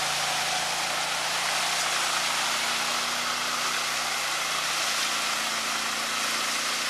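Ride-on concrete power trowel running steadily: a constant engine hum under an even hiss.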